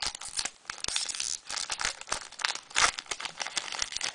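Foil wrapper of a Pokémon trading card booster pack crinkling and tearing as it is pulled open by hand. The crackling is busy and irregular, with its loudest crinkle about three seconds in.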